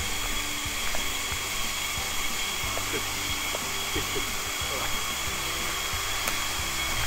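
Small waterfall pouring steadily into its pool, with a constant high-pitched drone over it.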